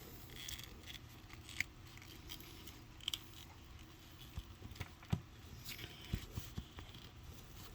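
Faint, scattered clicks and small knocks of a plastic action figure being handled, its joints clicking as its limbs and feet are posed.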